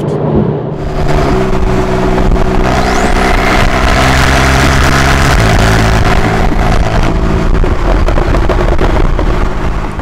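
Porsche 911 (991.2) flat-six with its factory Porsche Sports Exhaust, driving under way with a steady engine note that shifts in pitch a few times, over wind and road noise.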